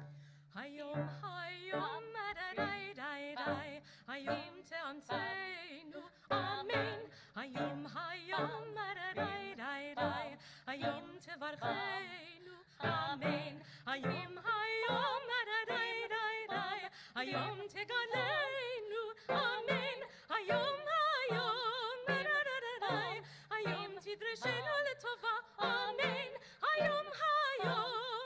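Two women cantors singing a Hebrew High Holidays liturgical duet in a full operatic style with wide vibrato, over low held accompaniment notes.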